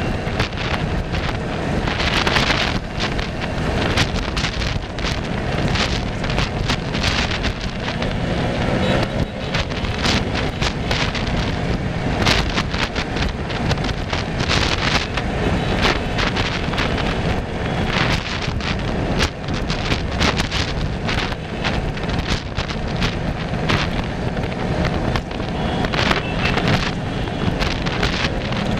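Wind buffeting the microphone: a loud, dense rumble with frequent gusts.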